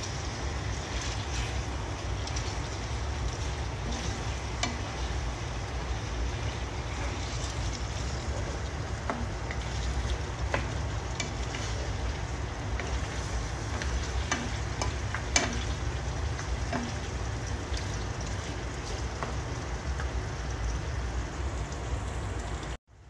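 Meat frying in menudo sauce in a non-stick pan, sizzling steadily, while a wooden spatula stirs it with scattered scraping clicks. The sound cuts off suddenly near the end.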